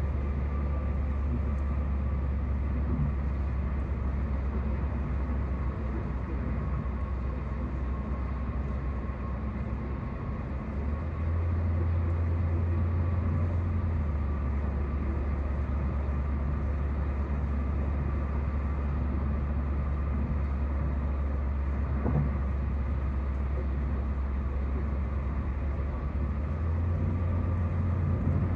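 Steady road and engine noise heard inside a car cabin at highway speed, mostly a deep low rumble. The rumble shifts slightly higher for a few seconds about eleven seconds in, and again near the end.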